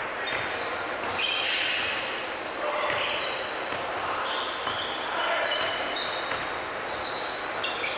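Basketball game sounds on a hardwood gym court: a ball bouncing and sneakers squeaking in many short, high squeaks, with occasional player shouts echoing in the hall.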